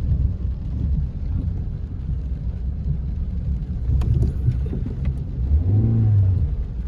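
Car driving, a low steady rumble of engine and road noise heard from inside the vehicle, with a few clicks about four seconds in and a short pitched sound near six seconds.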